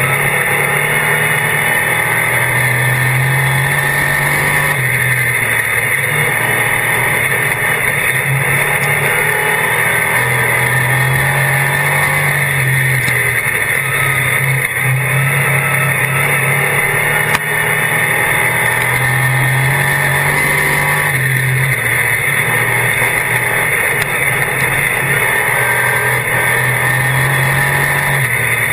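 Dirt-track Sportsman race car's V8 engine running hard at racing speed, heard from inside the cockpit. The engine note swells and eases every few seconds as the throttle opens and lifts around the oval.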